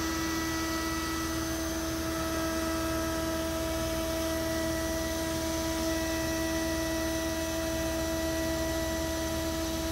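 DeWalt 618 router on a CNC machine running steadily while it carves grooves in MDF: a constant hum with a clear fixed pitch, over an even rush of noise.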